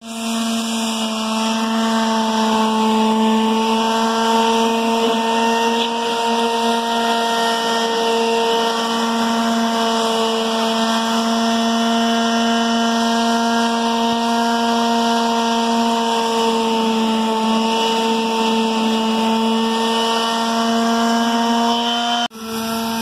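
Electric quarter-sheet palm sander running steadily on the painted wood of a barn door, a constant-pitched motor hum, sanding through the white paint to give the door a distressed, antique finish. It cuts off suddenly near the end.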